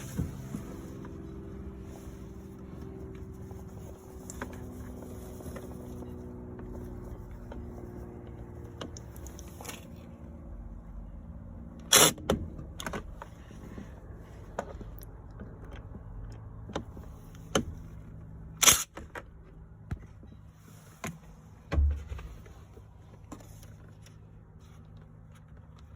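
Scattered clicks and knocks of tools and parts being handled in a car's steering wheel hub, with two loud sharp clicks about 12 and 19 seconds in and a dull thump near 22 seconds. A steady low hum runs underneath.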